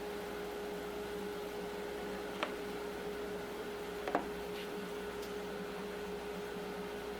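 A steady mechanical hum with one constant tone, broken by two light clicks about two and four seconds in.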